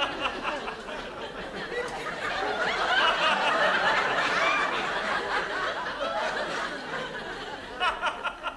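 Studio audience laughing, swelling about three seconds in and slowly dying away.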